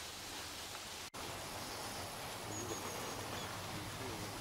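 Outdoor ambience: a steady hiss of open-air background noise, with a faint thin high chirp from a bird about two and a half seconds in. The sound drops out for an instant about a second in.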